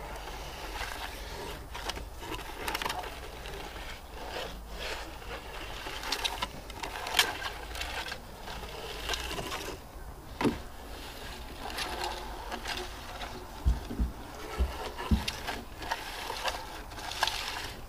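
Irregular scuffs, taps and scrapes from handling and sweeping a metal detector over stacked cedar slabs, with footsteps on dirt and a few dull thumps about three-quarters of the way through.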